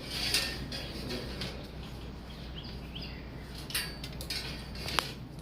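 A few short, high bird chirps over a low steady hum, with rustling handling noise at the start and sharp clicks, the loudest about five seconds in.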